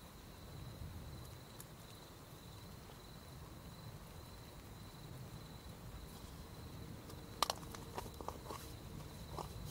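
Crickets calling with a steady, high, unbroken trill. From about seven seconds in, a series of sharp clicks and light knocks, the first the loudest.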